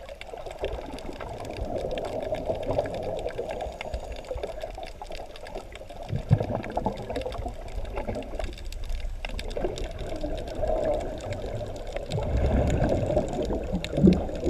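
Underwater, a scuba diver's exhaled regulator bubbles gurgling and rattling in long bursts, with a lull around the middle. Low rumbles of water moving past the camera come in now and then, most of all near the end.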